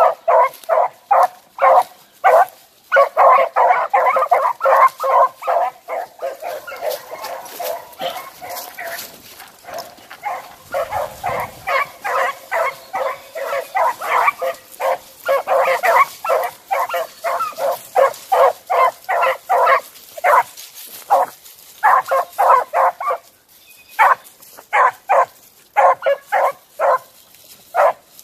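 Beagles baying on a scent trail: rapid, repeated short barks, about three to four a second, broken by a brief lull about ten seconds in and another near the end before they stop.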